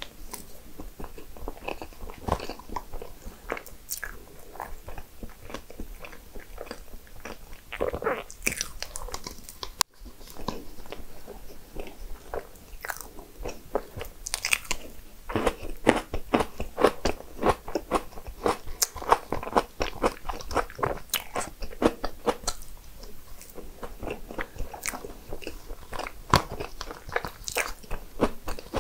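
Close-miked eating of pastry desserts: a continuous run of biting, small crunches and chewing clicks, with a brief dropout about ten seconds in.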